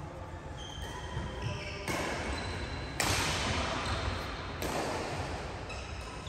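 Badminton doubles rally: racket strings striking the shuttlecock, with players' footsteps and shoe squeaks on the court mat. Sudden louder sounds come about two and three seconds in.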